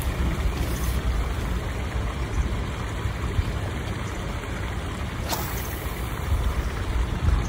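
Wind buffeting the microphone outdoors: a gusty low rumble with a steady hiss, and a single short click about five seconds in.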